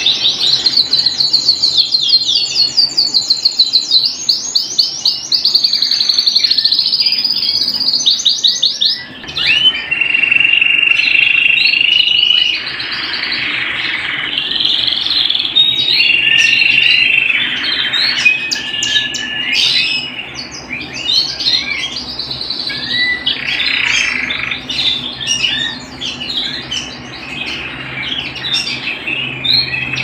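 Domestic canary singing a long, varied song: rapid repeated trills for the first several seconds, a brief break about nine seconds in, then held whistled notes alternating with shorter chirping phrases.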